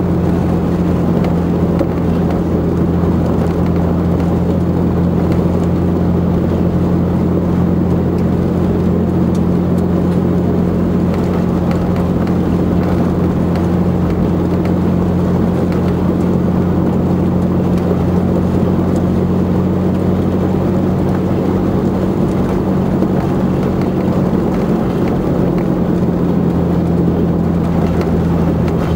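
Vehicle engine running at a steady cruise, with a low, even hum and the rumble of tyres on a graded dirt road, heard from inside the cab.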